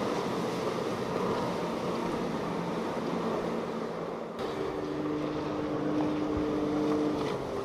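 Outboard motors on center-console boats running at speed, over the rushing noise of the hull and wake through the water. A little over four seconds in the sound changes abruptly to another boat whose engine drone holds a steady pitch, then dips slightly near the end.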